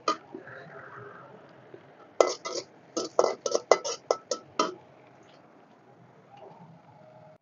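Steel spatula scraping and knocking against a steel kadai as frying onions are stirred. A quick run of about a dozen sharp clanks comes between about two and five seconds in, with one more at the very start.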